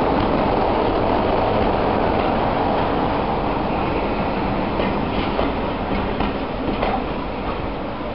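A train of passenger coaches rolling past close by, hauled by a diesel locomotive: a steady rumble of wheels on rail with a few sharp clicks over the rail joints in the second half, easing slightly toward the end.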